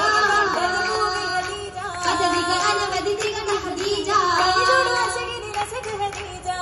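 Group of voices singing an Oppana (Mappila) song in unison over a PA, the long notes wavering and ornamented, with a few sharp hand claps from the dancers.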